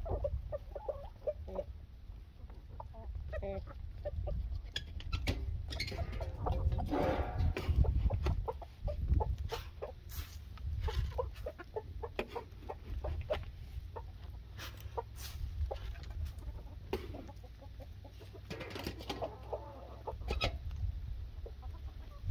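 A flock of backyard chickens clucking while they feed, with scattered sharp clicks and rustles over a steady low rumble.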